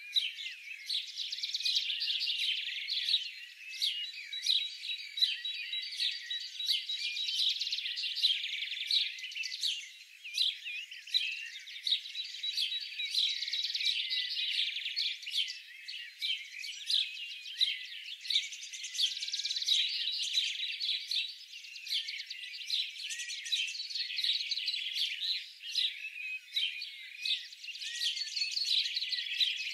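A dense chorus of many small birds chirping and twittering without a break, swelling and fading every few seconds. The sound is thin and high, with nothing low in it.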